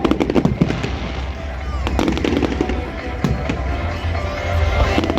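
Fireworks going off in a display: rapid crackling and popping bangs, thickest at the start and again near the end, with music playing underneath.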